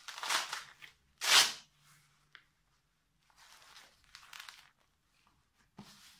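Velcro strips of a waist-trainer belt ripping and rustling as the belt is handled and fastened, in several short noisy bursts, the loudest about a second and a half in.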